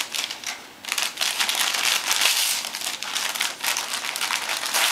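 Christmas wrapping paper on a gift crinkling and rustling as a Bouvier des Flandres tugs at it with her mouth. There is a brief lull just under a second in.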